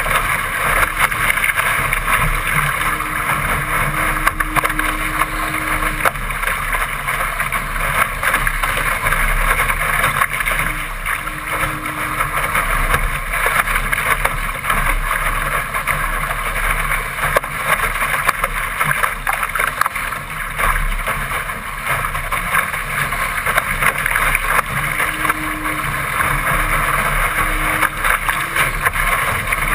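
Steady, loud rush of wind on a deck-mounted GoPro's microphone, mixed with water hissing and splashing along the hull of a Laser sailing dinghy as it sails fast and throws spray off the bow.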